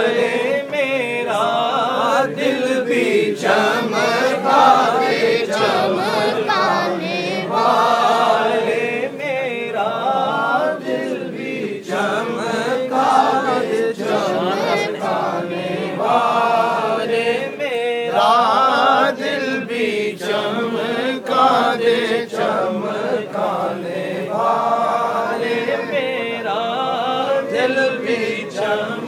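A man singing an Urdu naat solo into a microphone, unaccompanied, with long gliding held notes heard over a public-address system.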